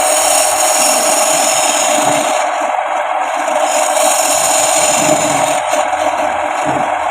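Wood lathe running steadily as the spinning wood is worked with a tool, a continuous hissing, scraping noise.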